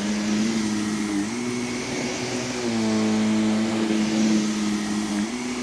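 Vacuum cleaner running over a rug, its motor hum steady but stepping up and down in pitch a few times as it is pushed back and forth across the pile.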